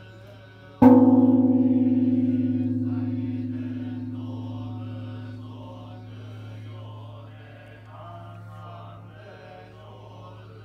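Kenchō-ji's great bronze temple bell (bonshō) struck once with a wooden beam about a second in, tolling the New Year's Eve joya no kane: a single boom that rings on in a long hum, fading over about five seconds. A sutra is chanted steadily underneath.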